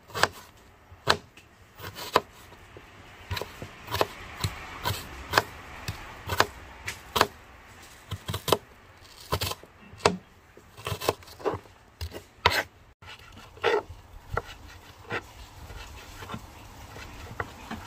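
Kitchen knife slicing through an onion and then a tomato, its blade knocking on a wooden cutting board in quick, uneven strokes.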